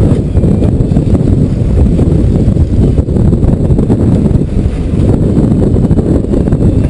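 Wind buffeting the camera's microphone aboard a fishing boat at sea: a loud, steady low rumble.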